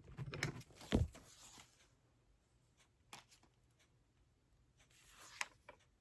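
Handling noises from jewelry pliers and their packaging being picked up and moved: soft rustling with a few sharp clicks, busiest in the first second and a half, then a single click about three seconds in and a short rustle with a click near the end.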